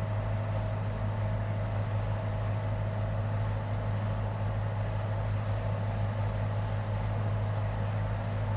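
Leopard 45 catamaran's diesel engines running steadily while motoring under way, a constant low drone.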